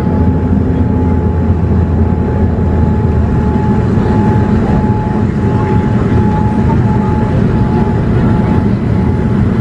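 Steady cabin noise of a Boeing 787-8 airliner on its descent: a deep rumble of engines and rushing air, with a thin steady high tone running through it.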